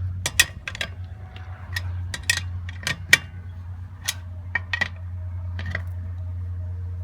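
Lug wrench working on a car's lug nuts, loosening them: irregular sharp metal clicks and clinks, about a dozen, as the wrench is fitted and turned, over a steady low hum.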